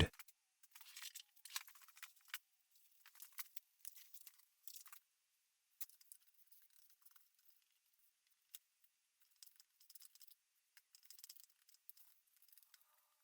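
Near silence with faint, scattered light ticks and scrapes of small handling at the bench, most of them in the first five seconds.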